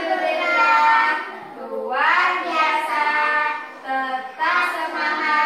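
Young children singing a song together in a group, a woman's voice among them, in phrases of long held notes.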